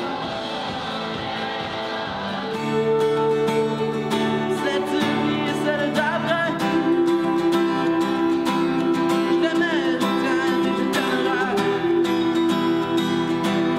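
Sustained music for about the first two and a half seconds, then an acoustic guitar strummed in a steady rhythm while a young man sings a melody over it.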